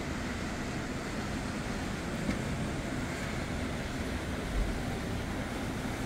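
Steady distant airport rumble and hiss with a faint low hum, and a brief low thump about four and a half seconds in.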